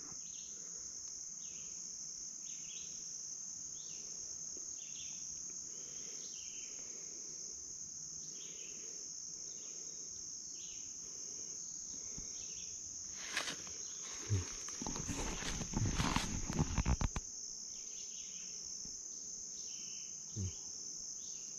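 Steady high-pitched drone of insects in summer woods, with a fainter short call repeating about once a second. Close rustling and knocks come in for a few seconds about two-thirds of the way through.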